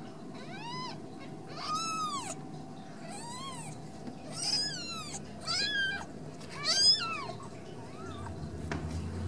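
Newborn Ragdoll kittens mewing: about six thin, high-pitched cries, one every second or so, each rising then falling in pitch.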